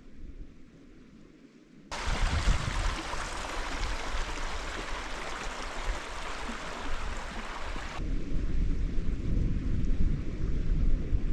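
Wind buffeting the microphone outdoors as a low rumble. A steady rushing hiss starts abruptly about two seconds in and stops just as abruptly a few seconds before the end, giving way to heavier low rumbling.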